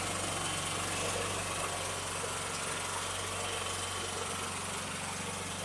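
Champion 100519 open-frame inverter generator's engine running steadily at low idle in eco mode, a little quieter than at full speed.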